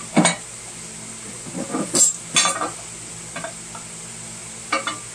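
A metal timing chain cover clinking and scraping against the front of a small-block Ford 302 as it is test-fitted by hand over a gear drive to check clearance: a few short, separate knocks, two of them close together about two seconds in, and one near the end.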